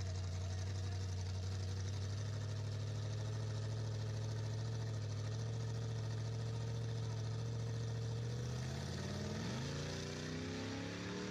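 Two drag-racing engines, a red compact pickup's and a blue Ford Mustang's, running steadily at the starting line. About nine seconds in they launch and the engine pitch rises quickly as they accelerate away.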